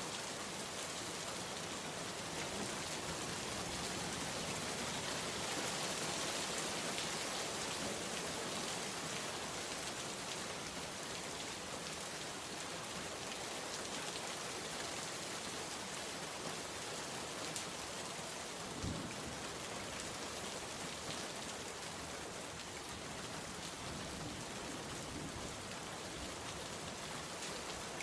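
Rain falling steadily, an even hiss of drops on surfaces. A single brief low thump sounds about two-thirds of the way through.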